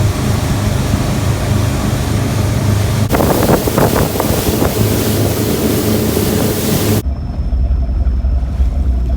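Motorboat engine running steadily, with heavy wind noise on the microphone and water rushing against the hull. The sound changes abruptly twice: it gets rougher and louder about three seconds in, then drops to a muffled low engine hum for the last couple of seconds.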